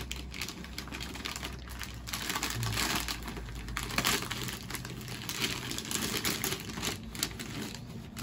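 Metallic gold foil gift wrap crinkling and rustling in an irregular crackle as a present is pulled open by hand.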